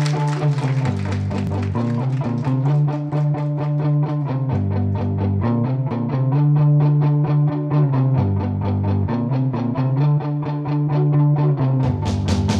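Live rock band playing: electric guitars pick a steady riff of about four strokes a second over low held notes that shift every second or two. Cymbal hits come in near the end.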